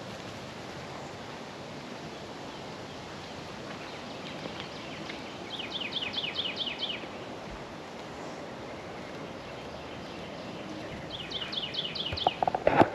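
Outdoor background hiss with a songbird singing two rapid trills of repeated high down-slurred notes, about six notes a second, one about midway and one near the end.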